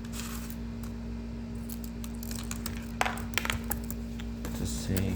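A few light, scattered clicks and taps from small objects handled close to the microphone, bunched about three seconds in, over a steady low hum.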